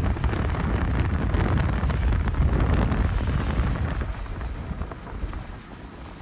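Heavy wind buffeting the microphone, a loud low rumble that eases off after about four seconds.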